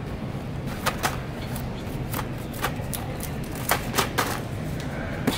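A plastic tub being handled on a metal store shelf: several light, irregular knocks and clicks over a steady low background hum.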